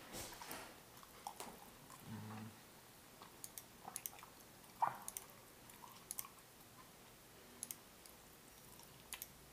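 A person chewing food, faint, with scattered light clicks.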